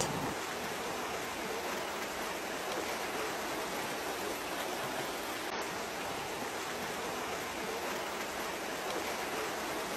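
Steady rushing of a mudflow, a fast torrent of muddy floodwater and debris pouring down a road.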